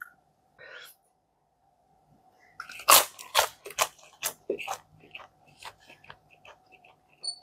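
Crunchy chewing of a chicken nugget close to the microphone: a run of crisp crunches about two or three a second that grow softer as the chewing goes on, over a faint steady hum. Two faint high beeps near the end.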